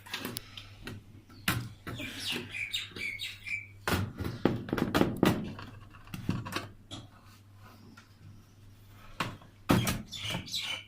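Clicks, knocks and rattles of small screws and a screwdriver being handled and worked into a metal computer case, a cluster of knocks about four to five seconds in and another near the end, with short high chirps about two seconds in and near the end.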